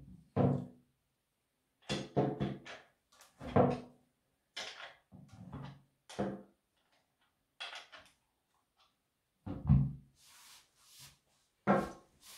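A chainsaw and a combination wrench being handled on a wooden table as the guide-bar nuts are loosened: about ten irregular knocks and clunks, some ringing briefly, with a soft scrape near the end.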